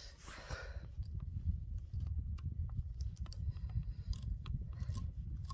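Scattered faint clicks and crackles at irregular intervals over a steady low rumble.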